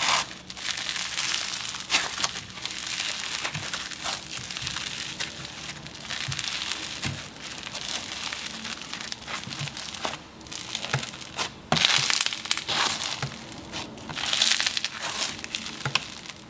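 Crunchy micro floam slime squeezed and kneaded by hand: a running crackle of crunches from the tiny foam beads, in irregular surges with each squeeze, loudest about three-quarters of the way through.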